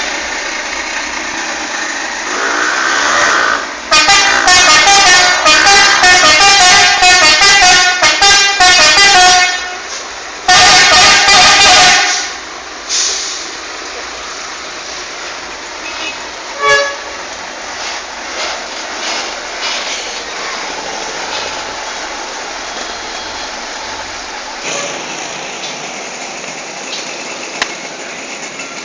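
A bus's telolet musical horn playing a fast, jingling multi-note melody for about five seconds, then one more loud blast. After that, steady traffic noise with a single short toot about halfway through.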